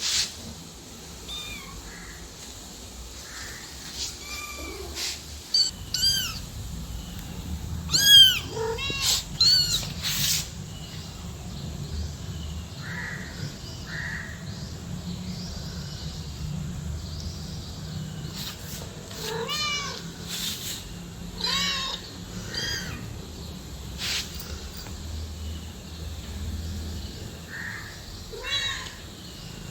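A cat and kitten meowing repeatedly: many short, high rising-and-falling calls, bunched in flurries with gaps between. A low steady rumble runs underneath from about five seconds in.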